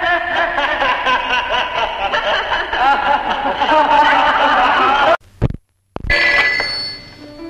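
Telephone bell ringing: a long ring that cuts off abruptly about five seconds in, then a second, shorter ring about a second later that fades away.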